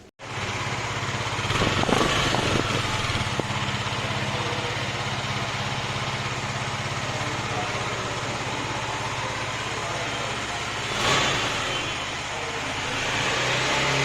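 Husqvarna Vitpilen 250's single-cylinder 249 cc engine idling steadily, with a brief rev about two seconds in and short throttle blips again later.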